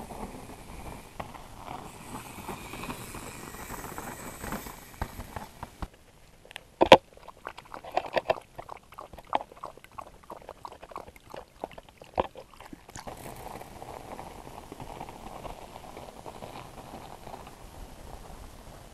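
Border collie lapping water from a rock pothole: a run of quick wet laps for about six seconds in the middle, opening with one loud sharp click. Before and after it, a steady rushing noise.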